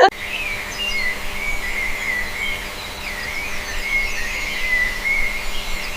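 A bird singing a continuous warbling song, wavering up and down at a high pitch, over a faint steady hum.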